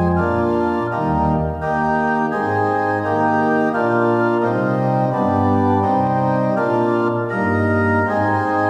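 Organ playing a slow progression of full, sustained chords, the harmony moving about once or twice a second.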